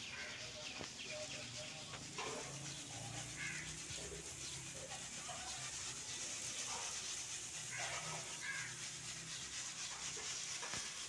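Wheat grain pouring from a woven winnowing basket onto a cloth, a soft steady hiss. Short bird chirps come now and then.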